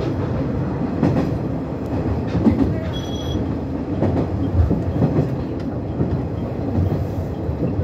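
JR West 103 series electric train running along the track, heard from inside the leading car: a steady rumble with irregular knocks of the wheels over the rails. A short high-pitched tone sounds about three seconds in.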